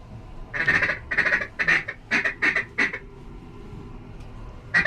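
A quick series of about six loud duck quacks, then a single quack near the end.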